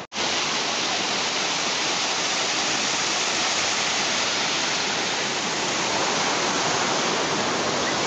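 Waterfall spilling down a rock face into a pool: a steady, even rush of water that starts abruptly at the very beginning.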